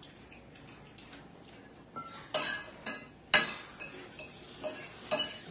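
Metal forks clinking and scraping against plates while noodles are eaten: faint at first, then a string of short sharp clinks from about two seconds in.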